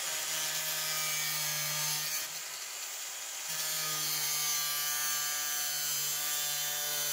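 Hand-held angle grinder cutting through sheet-metal tin, a steady whine with grinding hiss. The running note weakens from about two seconds in and picks up again about a second and a half later.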